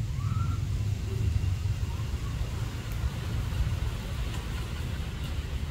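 Uneven low outdoor rumble, with a couple of faint, short, high rising calls about half a second in and again about two seconds in.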